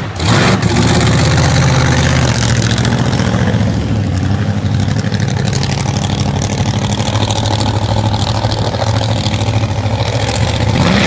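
JCB GT high-speed backhoe's engine running, a loud, steady low engine note that is slightly stronger for the first couple of seconds.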